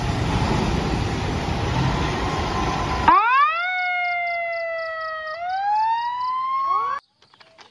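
Fire truck pulling out: about three seconds of loud engine and road noise, then its siren winds up quickly and wails, sagging slowly in pitch before rising again. It cuts off abruptly about seven seconds in.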